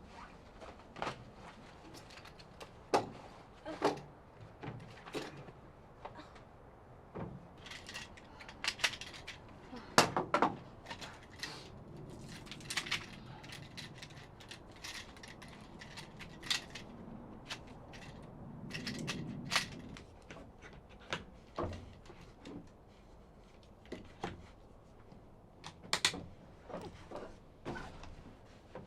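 Irregular clicks, knocks and rustling of objects being handled, spaced unevenly from under a second to a few seconds apart. The loudest knock comes about ten seconds in, and a softer stretch of rustling comes near two-thirds through.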